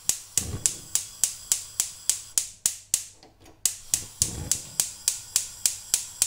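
Rapid, evenly spaced sharp clicking, about four clicks a second, pausing briefly about three seconds in, with a couple of dull low bumps.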